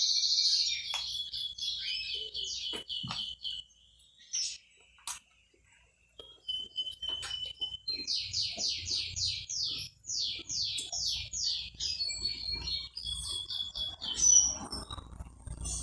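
A small bird singing in runs of fast, high, falling chirps and trills. It pauses for a couple of seconds partway through, then sings another long run. A few sharp clicks and knocks sound alongside, the loudest near the end.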